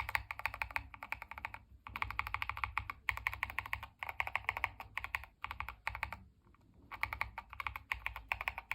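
Fast typing on a Tester 68 tray-mount mechanical keyboard fitted with stock, unlubed Fantasy DVA linear switches: quick runs of clacking keystrokes, with a pause of about a second and a half past the middle. The keystrokes sound uneven from key to key, which comes from the tray mount.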